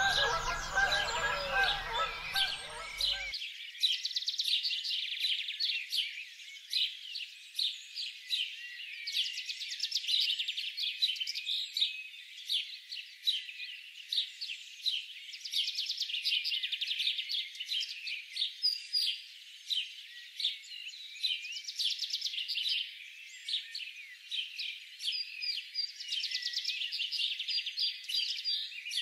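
A dense chorus of small birds chirping and twittering rapidly, all high-pitched. For the first three seconds the honking calls of a flock of large waterbirds sound beneath it, then they stop abruptly.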